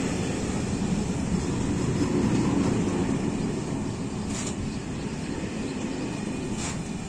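Covered and tarpaulin freight wagons rolling past on the track, a steady low rumble of wheels on rails. Two brief high-pitched sounds come through, about four and six and a half seconds in.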